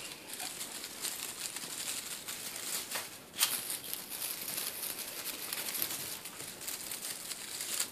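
Rustling and crinkling of a feather wand cat toy with shiny strips as kittens bat at it, with their paws scrabbling on fabric. There is a louder rustle about three and a half seconds in.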